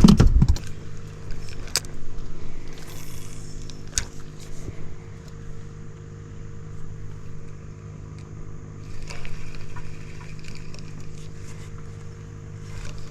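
Electric trolling motor on a jon boat running with a steady hum, and a couple of sharp knocks on the boat.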